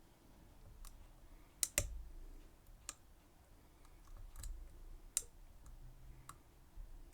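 Metal lock pick and tension tool clicking irregularly inside the keyway of a Schlage Everest pin-tumbler lock during picking, with a loud pair of clicks about two seconds in.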